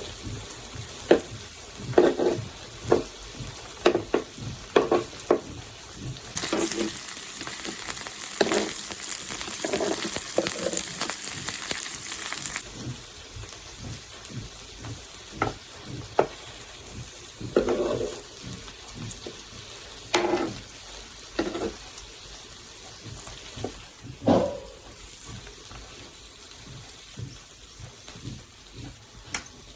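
Food frying in hot oil in a pan, with a loud hiss of sizzling that starts suddenly about six seconds in and stops sharply about six seconds later. Repeated sharp clacks and scrapes of a utensil against the pan, as the food is stirred and turned, run through it.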